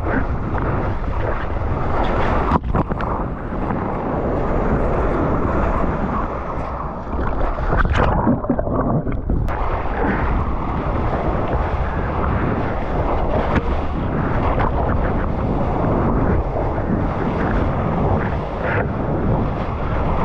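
Wind rushing over a GoPro's microphone mixed with the wash of breaking waves and water, a loud, steady roar. It turns briefly muffled, with the high end gone, about eight seconds in.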